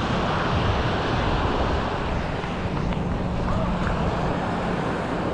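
Seaside ambience: wind on the microphone and surf, with a steady low hum running under the noise.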